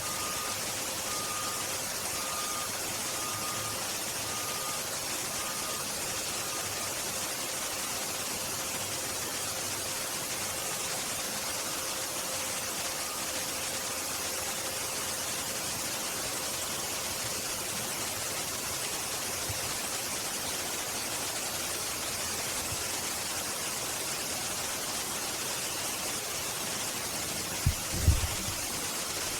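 Steady outdoor background hiss, with a faint beep repeating about once a second for the first several seconds and two low thumps near the end.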